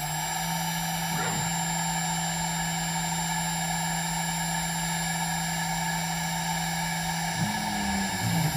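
Zealandia Systems Proteus P3 CNC router running a program: the spindle turns with a steady hum and high whine. About a second before the end, the machine's low tones begin gliding up and down as the gantry moves.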